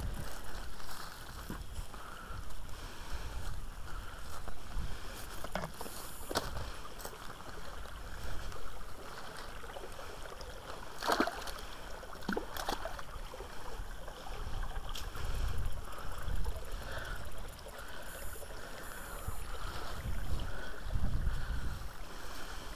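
Water of a small forest stream running and splashing over rocks, with a low rumble and a few sharp knocks and rustles from the mesh net and the person handling it.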